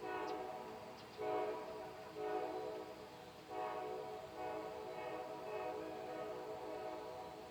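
Train horn sounding a run of blasts, several tones at once, with the last one drawn out and fading away near the end.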